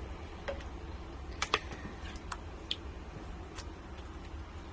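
A spoon scraping and lightly clicking against the crock pot and the sauce container while meat sauce is spooned over the noodles. There are about half a dozen scattered sharp ticks over a low steady hum.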